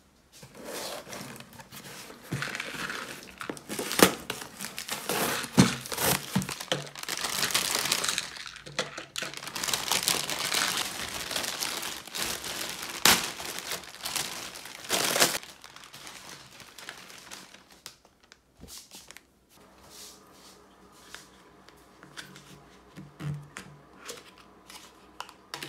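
Plastic packaging crinkling and rustling as parcels are unpacked by hand, with sharp snaps and tearing sounds. After about 15 seconds it dies down to quieter, occasional handling noise.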